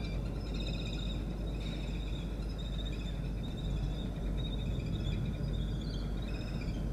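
Faint, high-pitched bird chattering and trilling, several overlapping calls coming and going, over a steady low background rumble.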